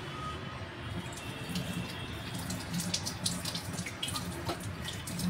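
Water running, as from a kitchen tap, steady throughout, with small clicks and clinks of things being handled.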